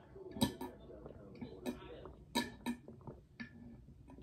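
A person gulping a drink from an insulated bottle: several separate swallows, each a short click, spread out over a few seconds.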